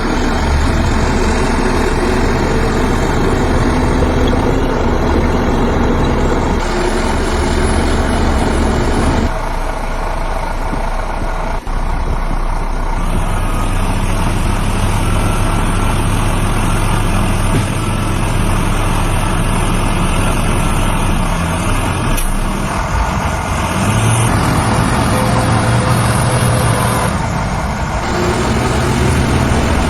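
Heavy diesel earthmoving machinery running, a steady engine hum whose note changes abruptly a few times.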